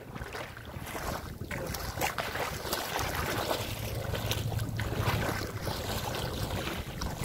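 Wind buffeting the microphone in a low, steady rumble, over water sloshing around legs wading through shallow sea. The rumble grows heavier about halfway through.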